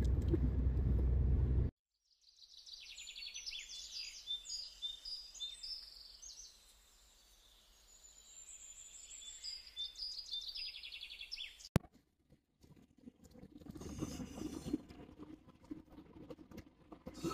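Birds chirping in many short, high calls for about ten seconds. Before them, a low car-cabin rumble cuts off suddenly. After a sharp click, the steady road and wind noise of a moving car comes back.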